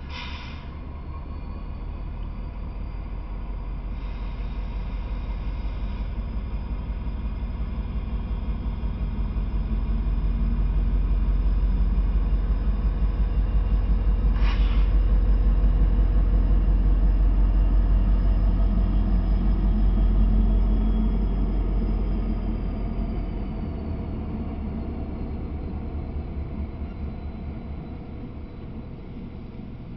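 Two Norfolk Southern diesel locomotives passing, their engines a low rumble that builds, is loudest in the middle and fades about three-quarters of the way through. There is a brief sharp click near the start and another about halfway.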